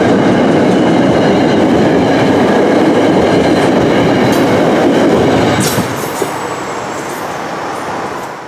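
Passenger train coaches rolling over a steel girder railway bridge: a loud, steady rumble of wheels on the rails. A few sharp high-pitched clicks come as the last car passes, about five and a half seconds in, and then the sound drops to a fainter rumble that fades away.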